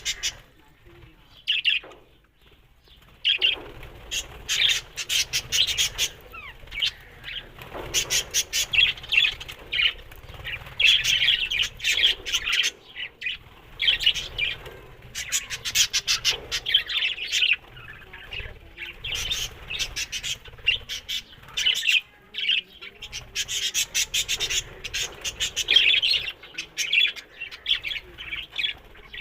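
Pet parrots chattering: rapid, dense high chirps and twitters with a short lull about two seconds in.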